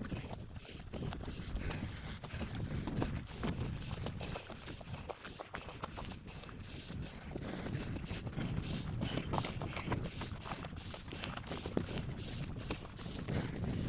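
Footsteps of a person walking briskly on a hill path, a steady run of crunching steps, over a low rumble of wind on the microphone.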